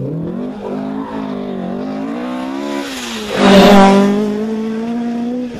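Ford Escort rally car's engine revving hard through a bend, its pitch rising and falling with throttle and gear changes. It is loudest as it passes close by about three and a half seconds in, then keeps pulling on a steady note.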